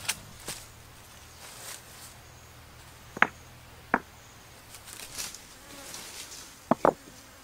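Heavy river stones knocking against each other as they are set onto a stacked rock pile: a sharp clack right at the start, two more about three and four seconds in, and a quick double clack near the end.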